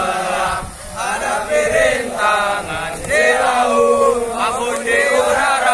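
A large group of young men chanting in unison, a drill chant sung in phrases with drawn-out notes and short breaks between them.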